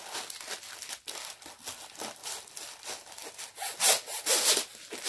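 Kit packaging handled on a tabletop: a run of short rustling, scraping strokes, the loudest about four seconds in.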